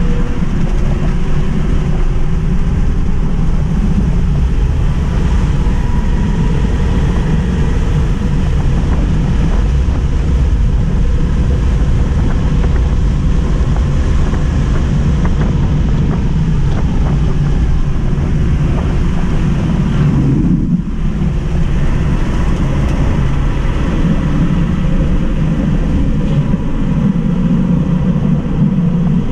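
Steady road, tyre and wind noise inside the cabin of a Tesla Model 3 Mid Range RWD electric car driven hard at track speed, with no engine sound. A faint whine shows in places, and the noise dips briefly about two-thirds of the way through.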